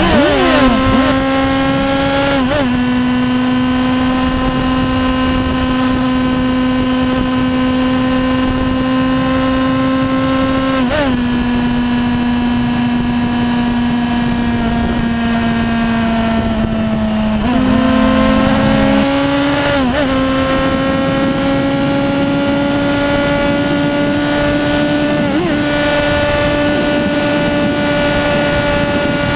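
Yamaha YZF-R1's inline-four engine running hard at highway speed, with strong wind rush on the microphone. The engine note holds steady with a few brief wobbles in pitch, then steps up and climbs slowly as the bike accelerates past 200 km/h.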